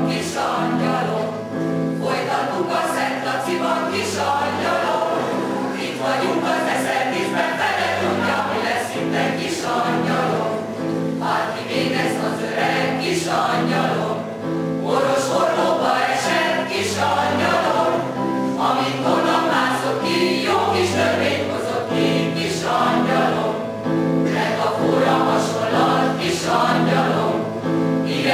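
A mixed choir singing a song, with held low notes that shift every few seconds beneath the melody.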